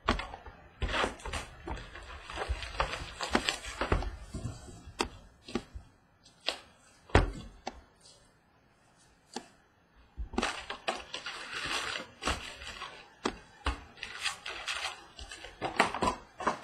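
Cardboard box of Topps Stadium Club baseball card packs being opened by hand and its foil packs pulled out and stacked on a wooden table: rustling and crinkling with sharp clicks and taps. It goes quiet for a couple of seconds about eight seconds in, then the handling starts again.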